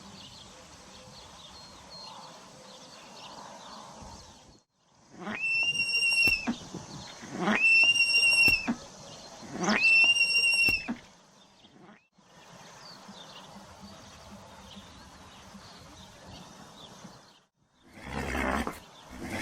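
Horse calls from a sound-effect track: three loud, nearly identical high-pitched whinnies about two seconds apart, set between stretches of faint outdoor ambience with small chirps, and a rough, noisy blast near the end.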